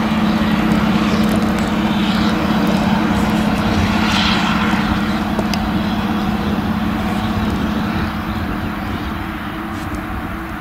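An engine running steadily at a constant speed, a steady drone that eases off slightly near the end.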